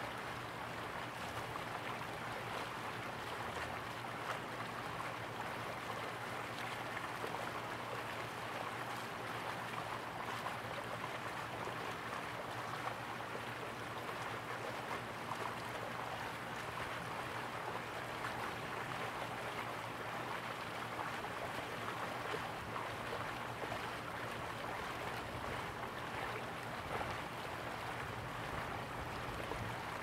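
Steady rushing of a flowing river, with a low, constant hum underneath.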